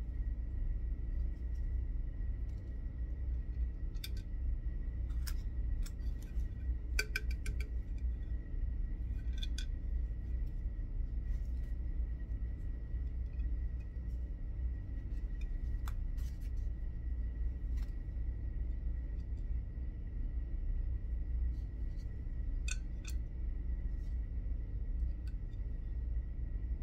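Scattered light metallic clicks and clinks of small seatpost bolts, clamp pieces and an Allen key being handled, with a quick cluster about seven seconds in. Under them runs a steady low hum with a faint high whine.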